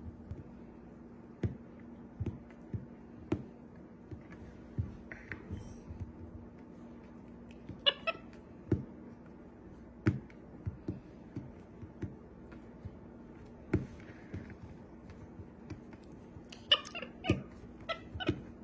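Capuchin monkey giving short squeaky calls, once about halfway through and again near the end, amid scattered sharp taps and knocks of hands and dough on a kitchen countertop, over a low steady hum.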